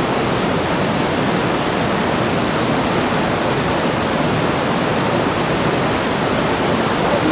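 Steady loud rush of a fast, clear mountain river torrent, an even wash of water noise with no breaks.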